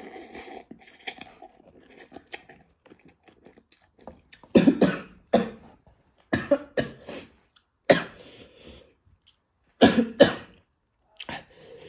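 A man coughing hard in repeated fits, about seven loud coughs mostly in pairs, choking on very spicy instant noodles. Quiet eating sounds come before the first cough.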